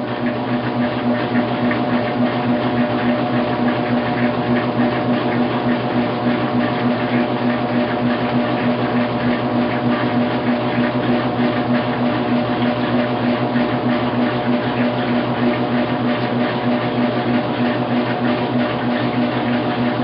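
Washing machine running: a steady mechanical hum with a low drone and several held tones over an even whir, unchanging throughout.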